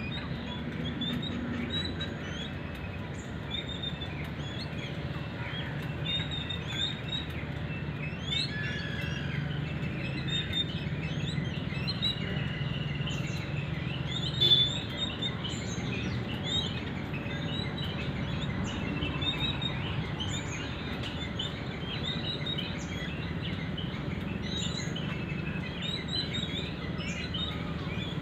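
Jungle babblers chirping: many short chirps overlapping without a break, over a steady low background hum, with one louder sharp sound about halfway through.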